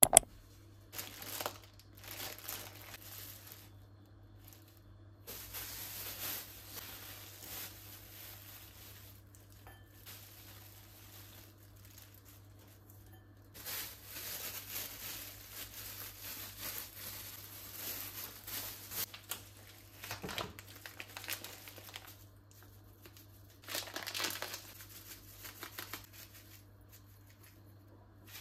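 Crinkling and rustling handling sounds, coming in irregular stretches with short pauses, after a sharp click at the very start.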